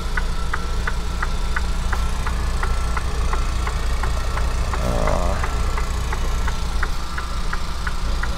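Freightliner semi truck's diesel engine idling, heard from inside the cab, with a steady ticking about three times a second.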